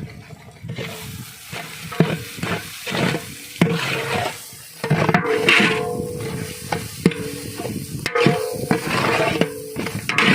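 Metal ladle stirring and scraping through sizzling onion–tomato masala in a large pot, mixing in freshly added chilli powder, in repeated irregular strokes with a metallic ring.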